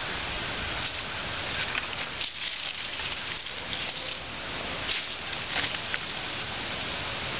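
Small fire of dry twigs and tinder crackling, a steady hiss with scattered sharp pops; a handful of sticks is laid onto it near the end.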